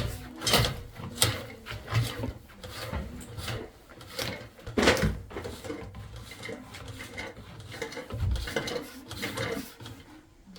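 Flexible-shaft drain cleaner's head scraping and grinding against heavy deposits stuck inside a sewer pipe: an irregular rasping with scattered knocks.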